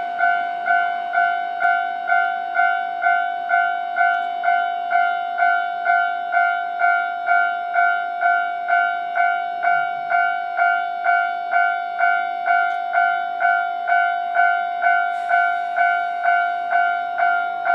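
Japanese railway level-crossing warning bell ringing: the same pitched ding repeated at an even, quick pace, the signal that a train is approaching the crossing.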